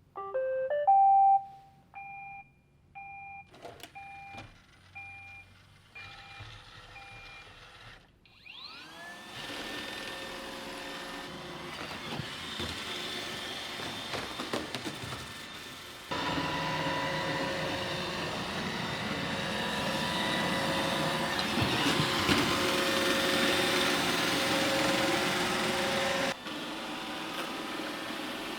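Roomba 800-series robot vacuum: a short rising electronic chime, then a string of beeps about once a second. Its motors then spin up with a rising whine and run steadily, stepping louder about halfway through and dropping back near the end.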